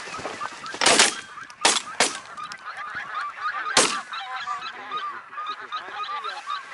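A flock of geese honking overhead without pause, while several shotgun shots go off in quick succession: a loud pair about a second in, two more near the two-second mark, and a last one near four seconds.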